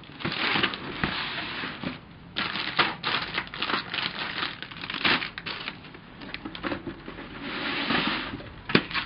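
Plastic bags holding model-kit parts crinkling and rustling as they are handled in a cardboard box, in irregular bursts with small clicks, and a single sharp click near the end.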